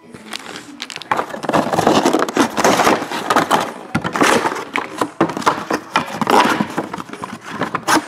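Close handling noise of cardboard trading-card boxes being moved and set down on a table: continuous rustling and scraping with many sharp knocks.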